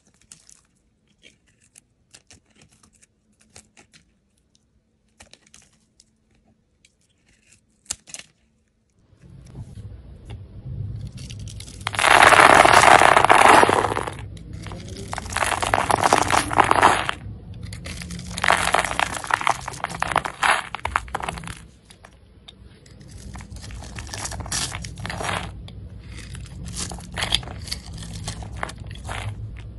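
A utility knife blade shaving dry bars of soap. It starts with faint crisp crackles and ticks as a pale bar is pared. From about nine seconds in come loud rasping, crunching strokes in several long runs as the blade shaves slivers off a scored red bar, over a steady low hum.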